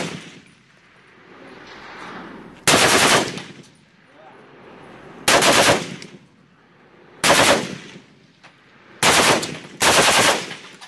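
Type-56 assault rifle (7.62×39 mm AK-type) firing short fully automatic bursts: five bursts of rapid shots, each under a second long, about two seconds apart, the last two coming close together.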